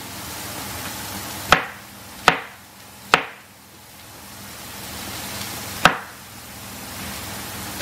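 Cleaver-style kitchen knife chopping okra on a wooden cutting board: four sharp chops, three about a second apart and a fourth near the end.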